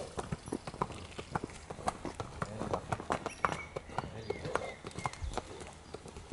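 A horse's hooves clip-clopping at a walk on tarmac: a steady run of sharp hoof strikes, several a second.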